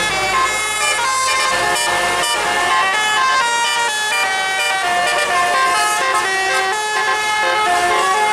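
Bus 'telolet' musical air horn playing a tune: several horn trumpets sound held notes together, stepping from one pitch to the next every fraction of a second.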